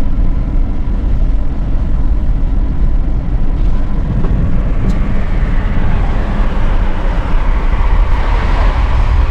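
Steady road and engine noise heard from inside the cabin of a moving car.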